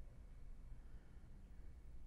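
Near silence: quiet room tone with a faint, steady low hum.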